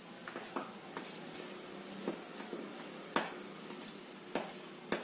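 A spoon stirring and mashing food colouring into soft custard-semolina dough in a bowl, with a few light knocks of the spoon against the bowl.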